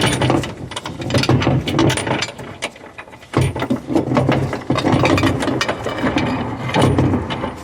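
Hand ratchet wrench clicking in repeated strokes as it turns a seat belt anchor bolt, with short pauses between runs.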